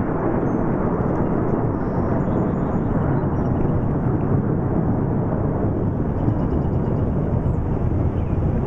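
Steady low rumble of a formation of military jets flying past at a distance, holding level with no clear rise or fall.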